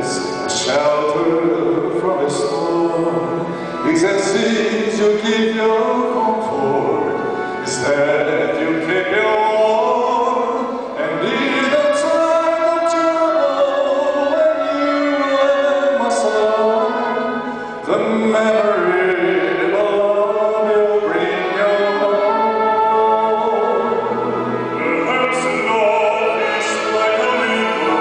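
A male voice sings a slow ballad into a microphone, holding long notes, with instrumental accompaniment.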